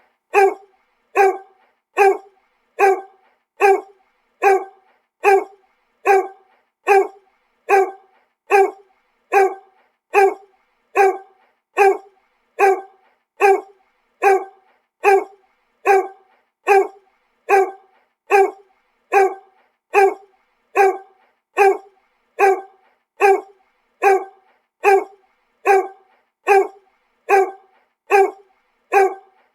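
A dog barking single barks at a steady, even pace, a little over one bark a second, each bark short and alike.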